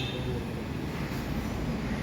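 Steady low background rumble with no distinct knocks or tones.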